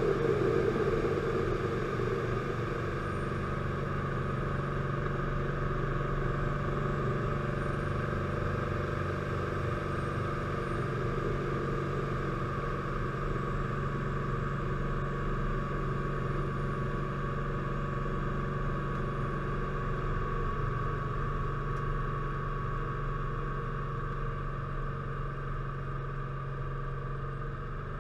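Piaggio P.149D's six-cylinder Lycoming piston engine and propeller droning steadily in flight, heard from inside the cockpit, easing slightly near the end.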